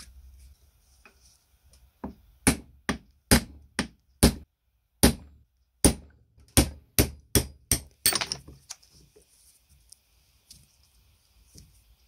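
Hammer blows on a steel pin punch driving a pin out of a cast lug on a clay-pigeon trap: about a dozen sharp metal-on-metal strikes, roughly two a second, each ringing briefly, the last with a longer ring.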